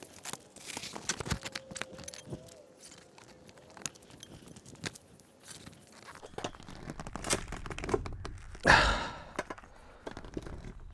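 Coleman camping cot being set up by hand: its metal frame clicks and knocks and its fabric rustles and scrapes, with one loud thump near the end.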